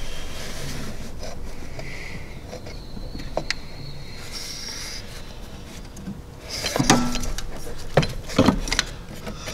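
A hand and forearm rubbing and knocking against parts in a truck's engine bay while feeling around the alternator. A few light clicks come first, then a run of louder knocks and rustling from about six and a half seconds in.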